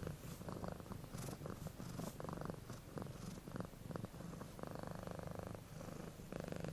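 Domestic cat purring, its purr rising and falling in loudness.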